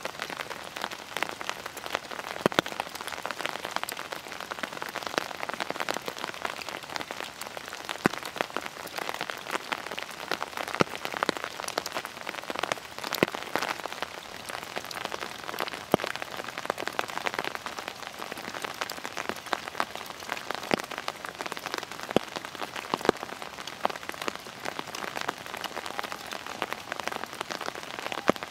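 Rain pattering on fallen dry leaves: a dense, irregular patter of drops, with the odd louder single drop standing out.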